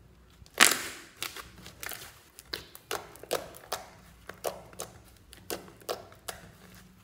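Thick, creamy slime being poked and squeezed by fingertips, giving a series of sharp wet pops and clicks as air pockets burst. The loudest pop comes about half a second in, then irregular pops follow two or three a second until near the end.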